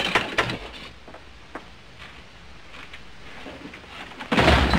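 Soundtrack of an old black-and-white comedy film clip: a short jumble of scuffling noises at the start, then a quieter stretch of faint hiss and a few light clicks. About four seconds in comes a sudden loud crash and commotion of many people.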